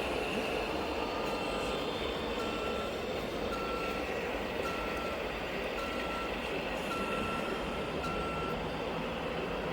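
Reversing beeper of a radio-controlled model truck or construction machine: a single-pitched beep sounding about once a second, around seven times, starting about a second in and stopping near the end, over steady hall noise.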